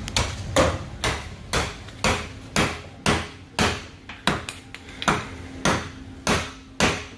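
Hammer blows on a tool at the top of a pickup's fuel tank, struck at a steady pace of about two a second. Each is a sharp knock, about fourteen in all.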